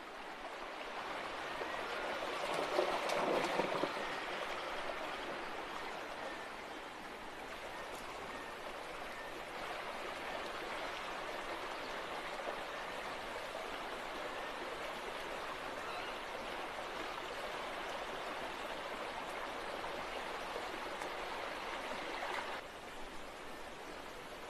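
Shallow rocky stream rushing and babbling over stones, with a louder splashy stretch about three seconds in. The water drops to a softer level about two seconds before the end.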